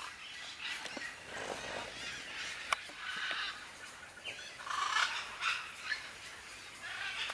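Parrots calling with repeated harsh squawks, several coming one after another, the loudest about five seconds in; a single sharp click about two and a half seconds in.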